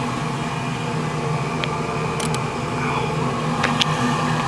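Draft inducer motor of a Ruud RGRC gas furnace running with a steady hum during the pre-purge, before the gas valve opens and the burners light. A few short clicks sound about a second and a half in, around two seconds in, and near the end.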